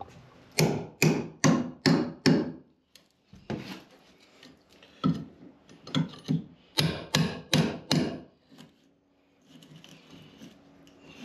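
Hammer driving a chisel into termite-rotted plywood, chipping the old wood out. Two runs of sharp blows, about two or three a second, with a short pause between them; the blows stop about eight seconds in.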